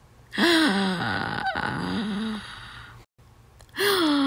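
A person's voice making two drawn-out wordless vocal sounds with sliding pitch. The first starts about half a second in and lasts about two seconds; the second starts near the end and falls in pitch.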